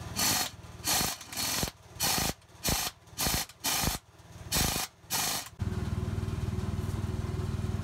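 Cordless impact driver run in short bursts, about ten in quick succession, working the bolts of the hard-face caps on a combine's accelerator (APS) drum. After about five and a half seconds the bursts stop and a steady low drone takes over.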